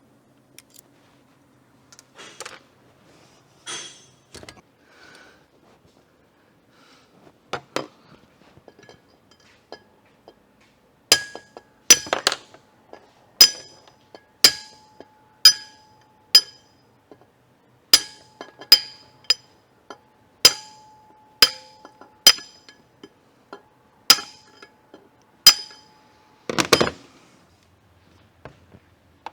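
A hammer striking metal during valve work on a cylinder head, about once a second, each hit ringing briefly. One final heavier, duller blow lands near the end.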